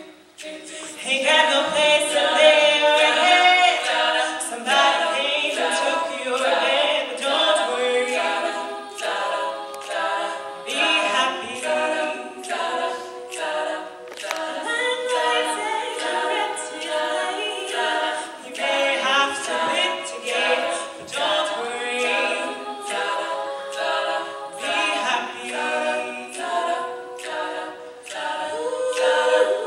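Female a cappella group singing in several parts over a steady beatboxed vocal-percussion beat of about two hits a second; the full group swells in about a second and a half in after a brief lull.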